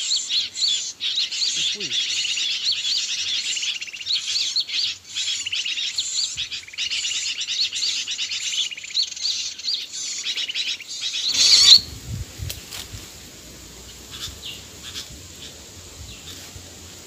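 Dense, rapid chattering of many sooty-headed bulbuls, the "kutilang ribut" MP3 lure call used to draw birds to lime sticks. It swells briefly and then cuts off suddenly about eleven seconds in, leaving a faint low rumble and a few light ticks.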